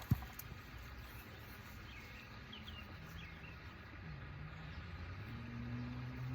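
Faint outdoor ambience: a brief knock at the very start, a few short bird chirps, and a low steady drone that comes in about halfway through and grows louder near the end.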